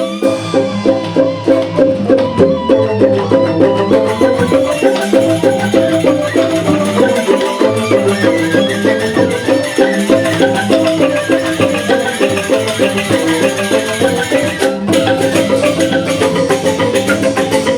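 Balinese joged bumbung gamelan: bamboo xylophones play fast, rapidly repeating interlocking melodic patterns over steady percussion.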